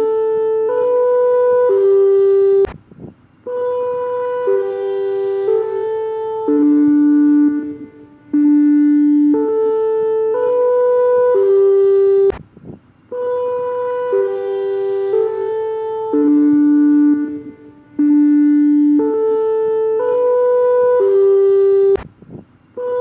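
Emergency alert alarm: a melody of held, horn-like notes that loops about every ten seconds. Each loop is broken by a sharp click, a short high beep and a brief drop-out, three times here.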